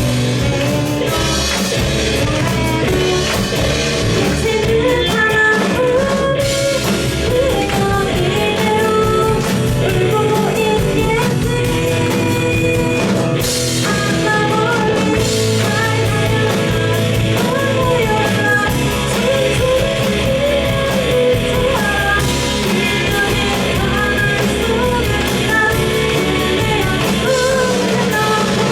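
Pop-rock band playing a song: lead vocal over electric guitars, bass guitar, drum kit and keyboard, loud and continuous.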